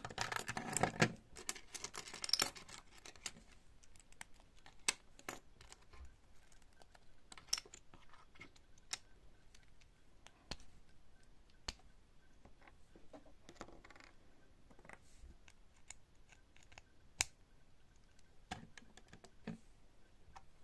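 Plastic LEGO bricks being handled: a rattling clatter of pieces for the first couple of seconds, then scattered single sharp clicks as pieces are fitted or set down.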